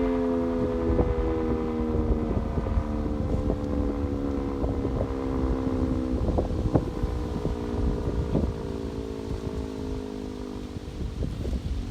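Sentry 10V outdoor warning siren winding down after a short test: several tones slide slowly lower together and fade. Wind rumbles on the microphone.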